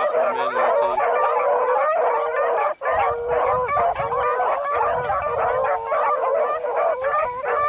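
A pack of beagles baying together on a rabbit's track, many overlapping long calls without a break.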